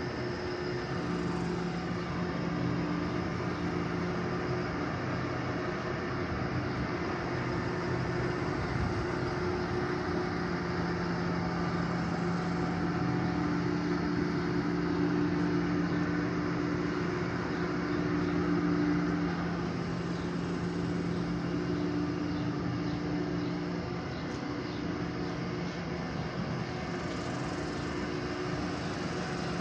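1972 Buick Skylark's engine running steadily, a low even hum, a little louder for a few seconds past the middle.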